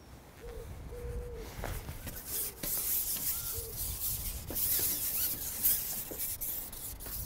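Match-fishing pole being pushed out along the bank: a rubbing hiss that swells and fades, with a few short low hooting notes and small clicks.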